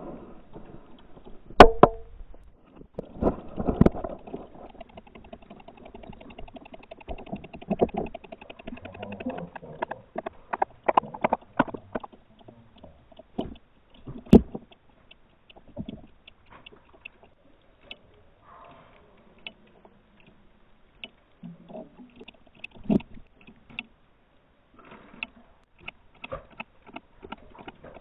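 Shiba Inu moving about in a shallow bathtub: claws tapping and scraping on the tub floor and water splashing, heard as scattered clicks with a few louder thumps. There is a stretch of fast ticking about five seconds in.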